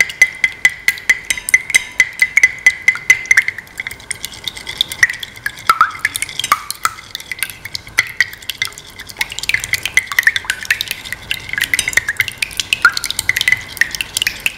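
Metal ladle stirring egg and milk mixture in a bowl: quick, rhythmic clinks of the ladle against the bowl, several a second, with a ringing tone in the first few seconds.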